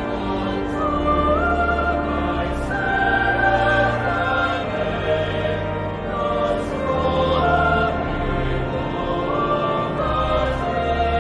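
Choral music: singing voices holding long notes that step up and down, over a low sustained bass.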